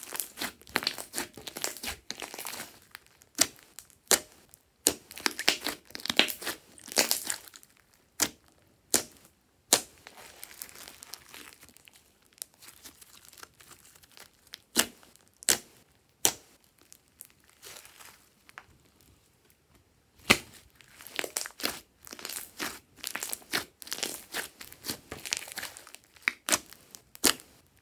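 Glossy slime being squeezed, folded and stretched by hand, crackling and popping as trapped air pockets burst. The crackles come in busy runs at the start and again near the end, with only scattered pops in between.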